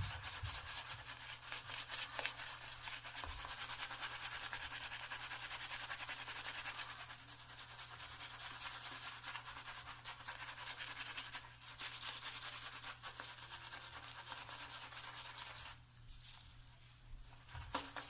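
Badger-hair shaving brush working soap lather across a stubbled face: a steady, quick, wet brushing scratch as the lather builds. It eases off briefly near the end.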